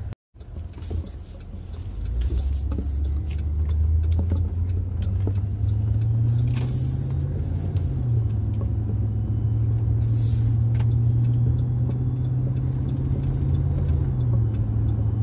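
Car being driven, engine hum and road noise heard from inside the cabin. The engine note swells about two seconds in, climbs, drops back about eight seconds in, and dips again near the end as the car changes speed.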